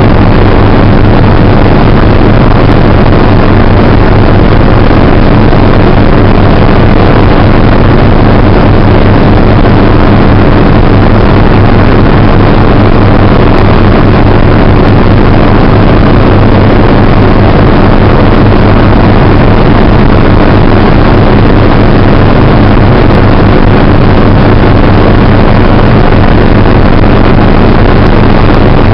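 Helicopter engine and rotor noise: a loud, steady drone with a strong low hum that does not change.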